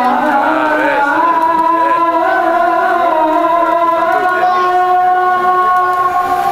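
A solo voice singing in a melismatic style: wavering, ornamented notes at first, then a long held note.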